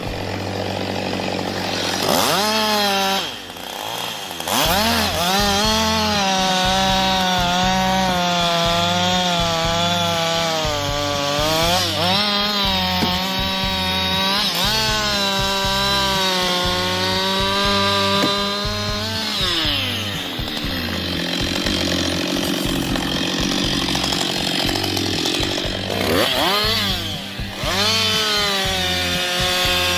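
Petrol chainsaw revving up and cutting through wood, its engine pitch wavering under load. The revs fall away about twenty seconds in, and the saw revs up again and bites back in near the end.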